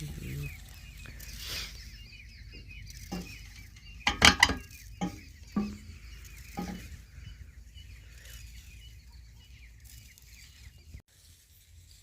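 Chickens clucking, with a few loud calls between about four and seven seconds in, over a faint steady low rumble that drops away near the end.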